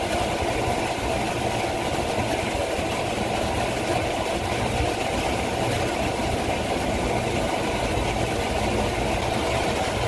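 Steady mechanical drone: a low hum with a constant mid-pitched whine above it, as of a motor or engine running without change.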